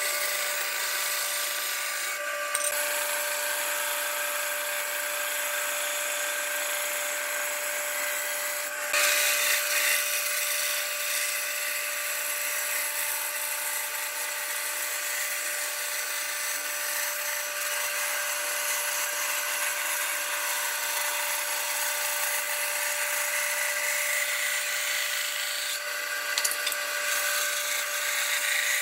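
Bench band saw running and cutting a curve through a wooden board: a steady machine hum with a constant tone and the hiss of the blade in the wood. The sound jumps abruptly a few times.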